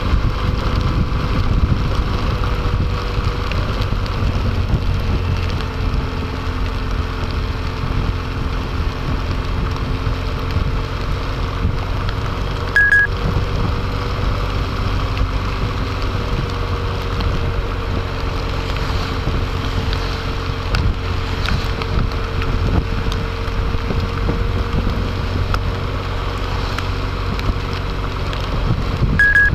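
Motorcycle engine running at a steady road speed, with wind and rain noise on the microphone. A short high electronic beep sounds twice, about 13 seconds in and again near the end.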